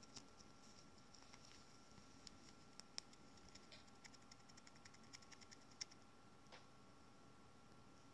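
Near silence with faint light clicks and scratches from a small white pet rodent moving about in a cupped hand. The clicks come in a quick run of several a second in the middle, with a couple of sharper ticks about three and six seconds in.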